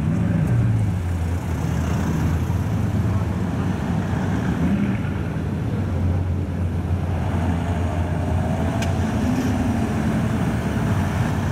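Cars driving slowly past on a street, their engines running with a steady low drone over road and traffic noise.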